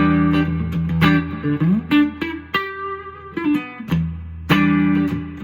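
Tom Anderson Icon Classic electric guitar played clean on its neck single-coil pickup through a Fender Princeton Reverb amp: ringing chords and single notes, with one note slid up in pitch about one and a half seconds in.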